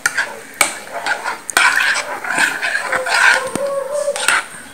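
Metal spoon stirring a thin mix of blended mango, curd and water in a glass bowl: liquid sloshing, with the spoon clinking against the glass several times.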